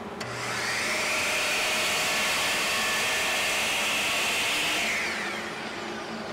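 Miter saw switched on with a click, its motor spinning up to a steady high whine, running about four seconds, then winding down after release.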